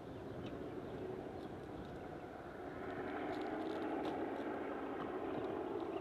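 Distant diesel locomotives hauling a loaded grain train, a steady engine drone that grows louder from about halfway through as the train approaches.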